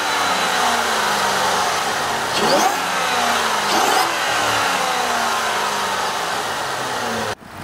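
2009 Cadillac XLR-V's supercharged 4.4-litre Northstar V8 running and being revved: two quick blips about two and a half and four seconds in, each falling slowly back toward idle. The sound cuts off abruptly near the end.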